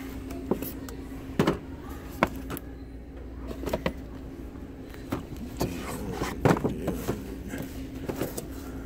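Boxed die-cast model cars being handled on metal store shelving: scattered knocks, clicks and scrapes of the cardboard-and-plastic packages, over a steady low hum.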